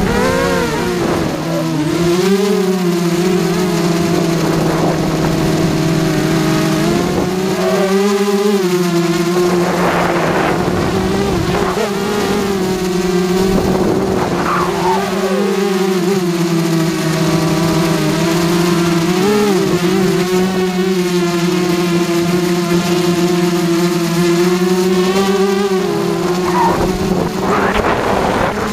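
QAV carbon-fibre racing quadcopter's motors and propellers buzzing in flight, heard from on board. The buzz holds a steady pitch with several brief swoops up and down in pitch.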